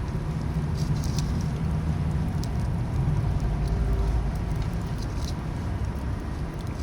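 Wood campfire crackling, with scattered sharp snaps, over a steady low rumble.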